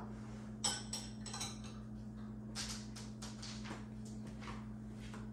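A few light clicks and clinks of kitchenware being handled, over a steady low hum.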